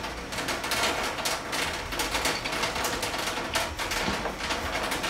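Felt-tip marker scratching across paper in a run of quick, irregular strokes.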